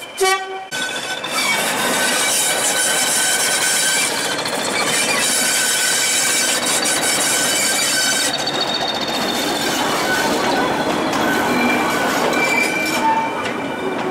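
British Rail Class 20 diesel locomotive D8020 shunting a rake of tank wagons and vans past at low speed. Its English Electric diesel engine is running and the steel wheels squeal on the curving track. A short horn toot sounds at the very start.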